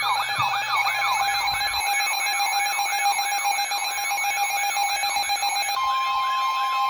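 Emergency alert tones ahead of a tornado warning: a steady tone under a fast, repeating rising-and-falling warble, about three sweeps a second. Near the end a second, higher steady tone joins.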